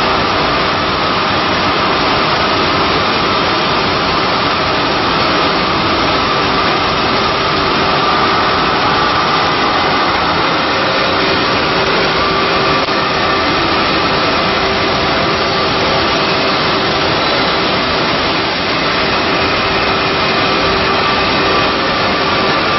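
A Cincinnati Milacron Model AM 5-axis CNC router profiler running. It makes a loud, steady machine noise with a few steady whining tones on top.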